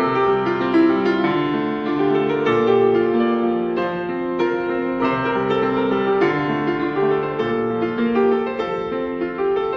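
Piano music: a slow-moving piece of melody over chords, notes changing about once a second.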